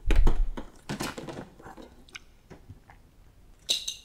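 An upright vacuum cleaner's removable plastic accessory hose being handled and a coin dropped down it to test it for a blockage: a heavy knock at the start, scattered clicks and rattles, then a short bright metallic clink near the end.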